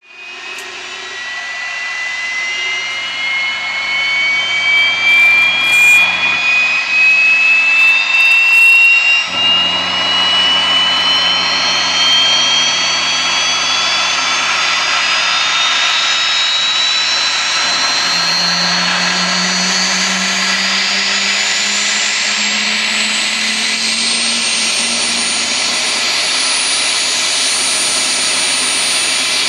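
Aérospatiale Gazelle helicopter's Turbomeca Astazou turbine starting up: a high whine climbs steadily in pitch for about twenty-five seconds, then levels off into a steady whine as the engine settles.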